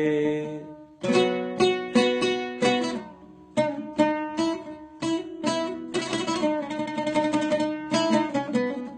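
Solo plucked string instrument playing a melodic instrumental passage of a Syrian folk mawwal: sharp plucked notes in short phrases, each ringing and dying away. A held sung note fades out in the first second.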